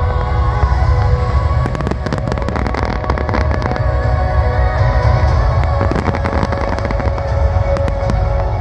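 Firework shells bursting and crackling in quick succession, the bangs thickening from about two seconds in, over loud music with long held notes.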